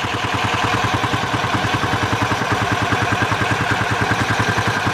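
A small boat engine running steadily with a fast, even putter.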